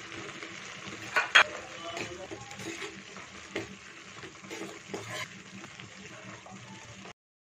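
Vermicelli boiling down in water in a steel kadai, a steady bubbling hiss, while a steel spoon stirs it. The spoon clatters sharply against the pan a little over a second in and knocks more lightly a few times later. The sound cuts off shortly before the end.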